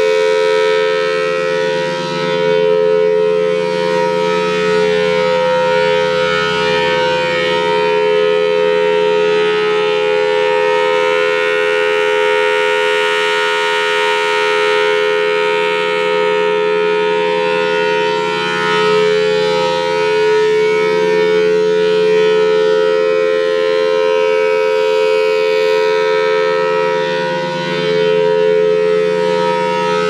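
Federal Sign & Signal Thunderbolt 1003 siren sounding its steady alert signal: a loud, level two-note chord from its 5/6 port-ratio chopper, swelling and fading slowly as the horn rotates.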